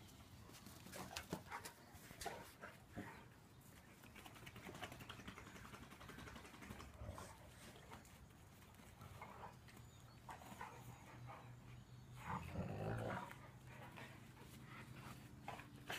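Two dogs playing close together, panting and sniffing, with scattered light clicks and scuffs. About twelve seconds in there is a louder stretch of low dog noise lasting about a second.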